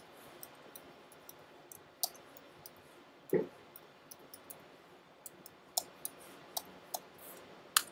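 Slow, irregular computer input clicks, about one per character, as a boot command is entered a character at a time. There is one short low sound about three and a half seconds in.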